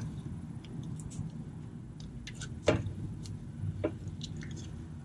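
Scattered light clicks and a few sharper knocks from a long wrench on the serpentine belt tensioner and the belt being worked around the engine pulleys, the loudest knock a little past halfway, over a steady low hum.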